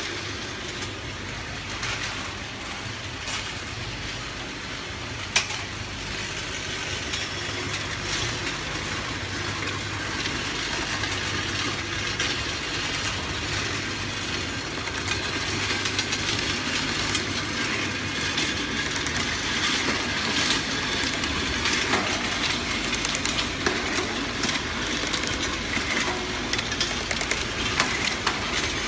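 Automatic cough-syrup bottle filling and ROPP capping machine running at production speed: a steady motor hum under a constant clatter of rapid clicks from bottles and caps moving through the line.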